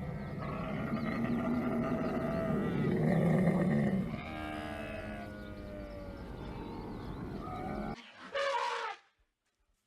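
Wild animal calls: several overlapping low, pitched calls, some gliding in pitch, for about eight seconds. Then a short, higher call, followed by a brief silence near the end.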